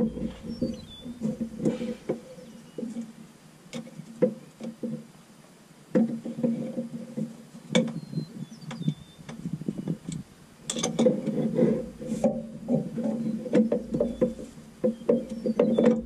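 Irregular metal clicks and clinks of a wrench working a hydraulic hose fitting in a Bobcat S250 skid steer's engine bay. There is a quieter stretch early on, and the clicks come thick and fast over the last five seconds.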